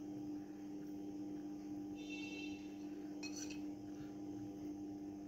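Steady low electrical hum, with a brief faint high ringing tone about two seconds in and a soft click shortly after.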